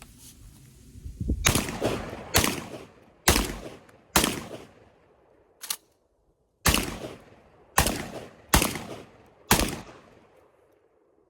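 Garaysar TR19S semi-automatic 12-gauge shotgun firing eight rounds of 00 buckshot: four shots about a second apart, a short pause with one lighter sharp click, then four more shots at the same pace, each shot ringing out briefly. The gun cycles through all eight without a stoppage.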